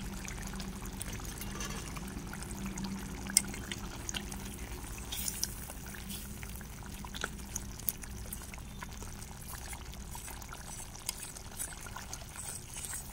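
Chicken curry bubbling in a steel pot over a wood fire while a metal spoon stirs it, with scattered sharp clicks throughout.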